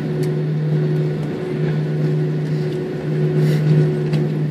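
Steady mechanical hum with a strong low tone and a fainter higher one over a noisy rumble, with a few faint clicks.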